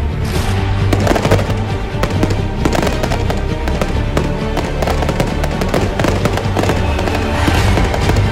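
Strings of firecrackers crackling in a dense, continuous run of sharp pops, with music playing underneath.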